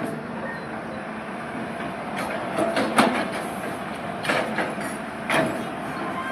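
Long-arm excavator running steadily, with several sharp metallic clanks from its working arm and bucket, the loudest about three seconds in.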